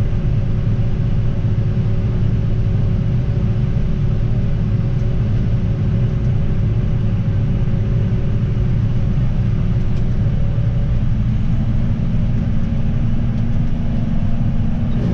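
Large diesel engine of harvest machinery running steadily under load: a low rumble with a faint steady whine above it.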